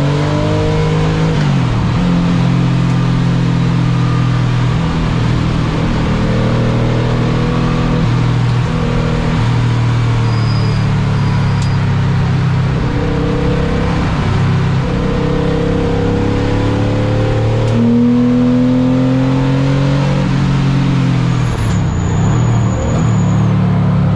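Car engine driven hard on a race track, its note climbing as it revs up under acceleration and settling between pulls, over a steady rush of wind and road noise.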